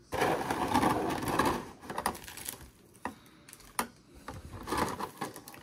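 Plastic figure packaging being handled and pried open: a crinkly rustle for about a second and a half, then a few sharp plastic clicks and short rustles as the figure is worked loose from its tray.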